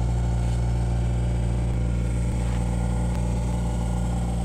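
A boat's motor running at a steady low drone with no change in pitch: the water taxi under way on the lake.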